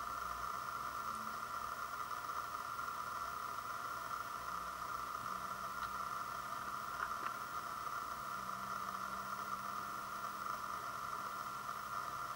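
Steady background hiss, strongest in a narrow mid-pitched band, with a few faint ticks about six to seven seconds in.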